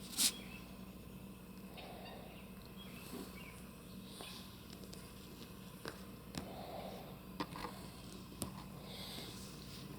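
Faint, short animal calls of the fowl or bird kind, heard now and then, with scattered clicks and taps. A sharp click just after the start is the loudest sound.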